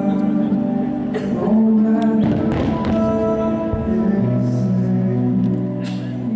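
Music of a fireworks show soundtrack, sustained pitched notes and chords, with a few firework shells bursting in it.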